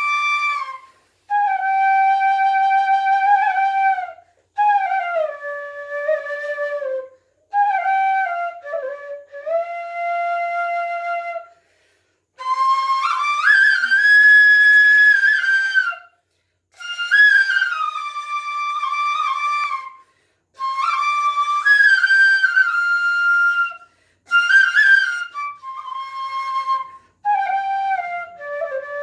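Solo bansuri (bamboo transverse flute) playing a Chhattisgarhi folk dhun, unaccompanied. The melody comes in short phrases of a few seconds each, with sliding pitch changes and brief silent gaps between them.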